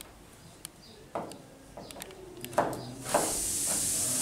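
Chef's knife cutting carrot on a plastic cutting board: a few separate knife strikes with pauses between them. About three seconds in, a steady high hiss starts and keeps going.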